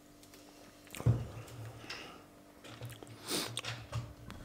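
A person drinking from a plastic bottle of Pepsi: a series of short gulps starting about a second in, with a brief louder noisy sound a little past three seconds.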